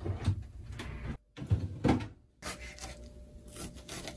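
Several knocks and clunks of kitchen things being handled, as with cupboard doors or cookware, with the sound cutting out completely twice for a moment.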